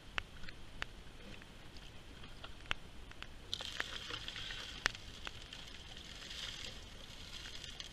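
Water splashing from a tilted sluice box into a plastic gold pan, a steady hiss that starts about three and a half seconds in as the concentrate is rinsed out. Scattered sharp drips and taps run throughout.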